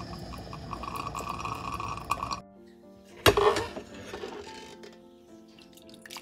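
A Technivorm Moccamaster drip coffee maker brewing, with water trickling and gurgling into its glass carafe among small clicks. It cuts off abruptly after about two and a half seconds. Soft background music follows, with one sharp clink about a second later, the loudest sound, and coffee starts pouring into a mug at the very end.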